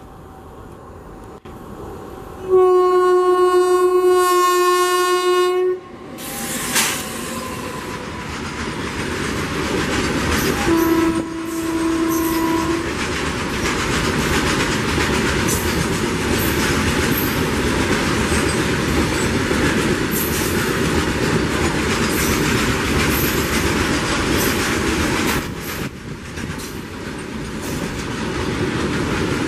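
Electric locomotive of a freight train sounding one long horn blast about two and a half seconds in, then a shorter, lower blast around eleven seconds. The freight wagons then roll past with a steady rumble and clickety-clack of wheels over the rail joints.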